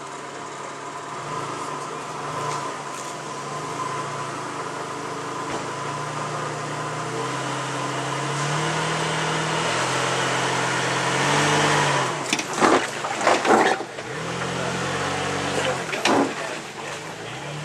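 Nissan Xterra's engine working at low speed over rocks, its revs rising and falling in small steps. After about twelve seconds come a few sharp knocks, and one more near the end.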